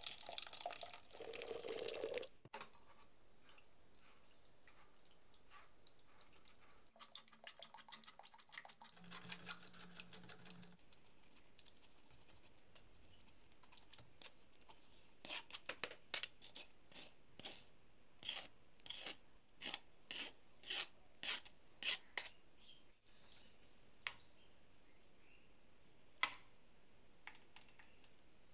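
Thick tomato purée poured into a stainless-steel mesh sieve, then a metal spoon scraping and pressing the pulp through the mesh in a quick run of strokes, about two a second. A single sharp click comes near the end.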